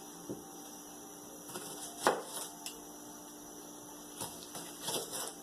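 A knife chopping an onion on a cutting board: a few scattered, irregular taps and knocks, the loudest about two seconds in, over a steady low hum.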